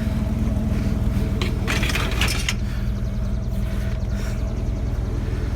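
A vehicle engine idles steadily. About one and a half seconds in, a brief rattling clatter like handled scrap lasts roughly a second.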